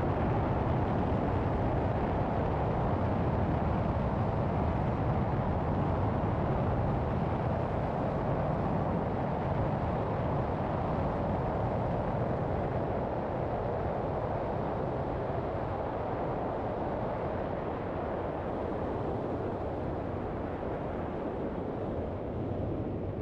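Two-seat ultralight aircraft's engine and propeller running steadily as the plane taxis, a continuous rushing drone that eases slightly toward the end.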